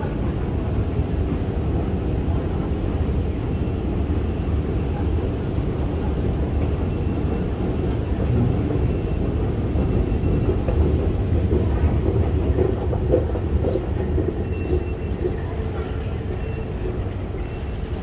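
London Underground Jubilee line train running through the station as a steady low rumble, a little louder around the middle. Faint high tones sound near the end.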